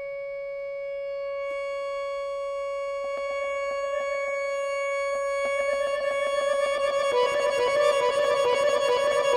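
Accordion holding one long, steady note that slowly swells in loudness; soft clicks and a grainy texture join about three seconds in, and a second, slightly lower note comes in about seven seconds in, beating against the first.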